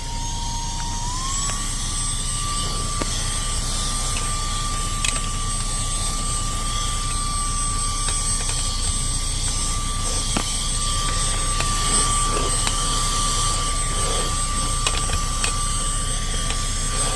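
Cordless handheld vacuum with a brushless motor running, a steady high whine over a rush of air; the whine steps up in pitch about a second in. A few faint clicks come through.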